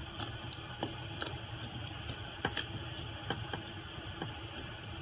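Scattered light clicks and taps of small tools and parts during phone repair, irregular and about seven in all, over a steady low background hum.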